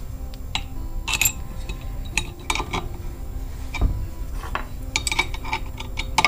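Irregular metallic clinks and clatter of a steel washer, nut and open-end wrenches being handled on the threaded rod of a power steering pulley installer tool.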